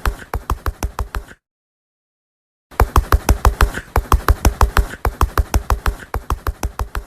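Rapid knocking, about six knocks a second. It stops dead a little over a second in, and starts again after a pause of about a second and a half.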